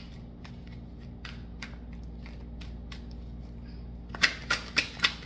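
A deck of tarot cards being shuffled by hand: soft, scattered card clicks at first, then from about four seconds in a run of sharp card snaps, about four a second.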